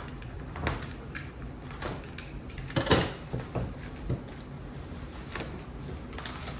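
Scattered knocks, clicks and scrapes of hands working at a cardboard shipping box and its packaging, loudest about three seconds in.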